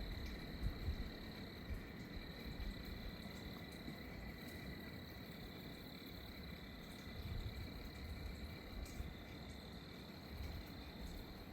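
Steady chorus of frogs and insects calling, with a low, gusty rumble of wind on the microphone underneath.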